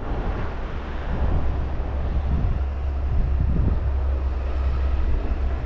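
Wind rumbling and buffeting on the microphone in a blizzard, a steady low roar.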